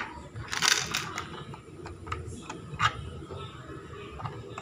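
Small hard-plastic parts of an RC truck being handled and pressed into place: a louder plastic scrape-and-click a little under a second in, then a few lighter clicks and rattles.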